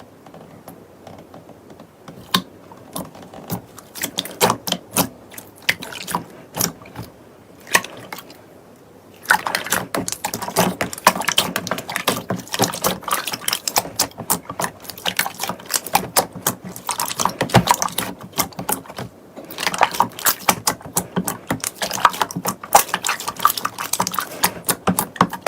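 Slime being squished and worked by hand, giving wet clicks and pops: scattered at first, then a dense, continuous crackle from about nine seconds in.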